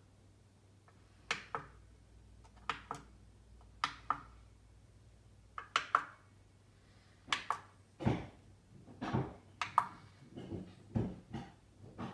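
Front-panel push buttons on a Sherbourn PT-7010A preamp processor being pressed one after another, each press a sharp click, often a quick double click, about every second. Some duller knocks come near the end.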